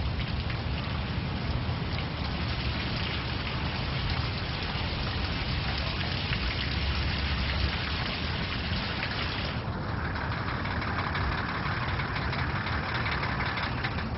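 Water gushing and splashing steadily as the flushing water is released from a Me 163 Komet's fuel tanks, with a low rumble underneath. About ten seconds in, the high hiss drops away, leaving a narrower rushing sound.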